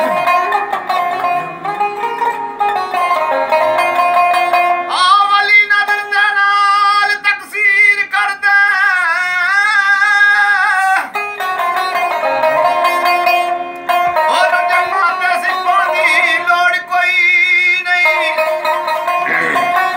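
Punjabi Sufi folk music (Sufiana kalam): a plucked string instrument plays the melody. A wavering sung or melodic line is held between about 5 and 11 seconds in, and again near the end.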